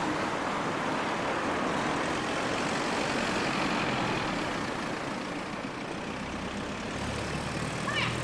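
Town-centre road traffic: cars driving past, a steady rush of tyre and engine noise, with one car's engine humming close by near the end.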